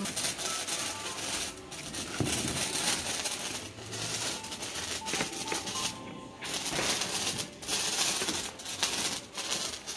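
Hand-held sparkler burning with a dense, steady crackle of sparks.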